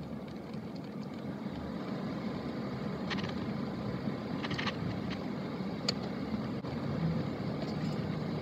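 Car engine and road noise heard from inside the cabin while driving: a steady low hum, with a few light clicks in the middle.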